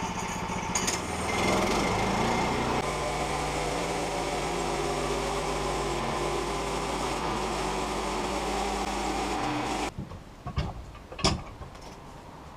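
Woodland Mills portable band sawmill's gas engine running, coming up in speed a second or two in and then running steadily; it cuts off suddenly about ten seconds in, followed by a few knocks.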